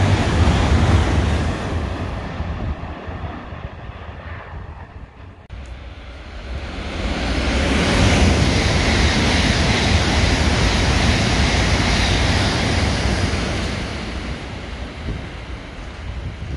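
E7-series Shinkansen passing through a station at speed, a loud rushing noise that fades away. After a sudden cut, a second E7-series Shinkansen swells into a loud rushing pass lasting several seconds, then fades as it recedes down the track.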